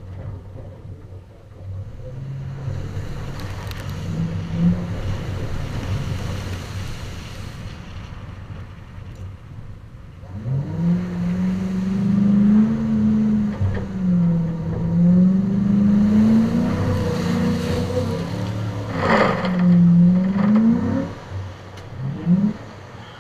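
A vehicle engine revving, its pitch rising and falling over and over from about ten seconds in, over a steady hiss of tyres and spray on wet dirt.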